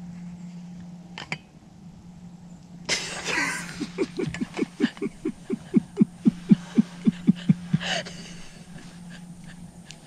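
A young woman bursting into hearty laughter: a sudden rush of breath about three seconds in, then a long run of rapid, rhythmic laughs, about four or five a second, ending in a gasp for breath near the end.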